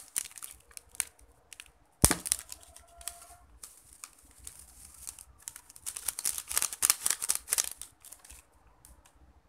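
Foil instant-noodle seasoning sachet crinkling as it is torn open and shaken out over a ceramic plate, with one sharp click about two seconds in. The crinkling is loudest in the second half.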